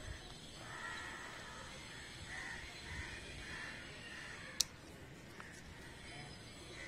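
Crows cawing several times through the first half, then one sharp click about four and a half seconds in: a snip of hand pruning shears cutting a bean pod.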